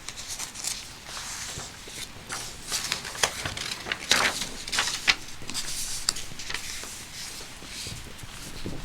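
Steady patter of gentle rain, with a run of light clicks and rustles from handling, densest between about two and five seconds in.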